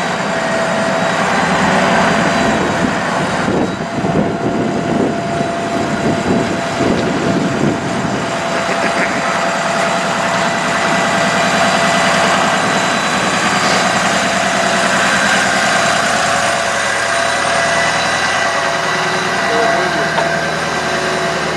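Truck engine running steadily at raised idle with the power take-off engaged to drive the bucket truck's boom hydraulics, with a steady high tone over the engine.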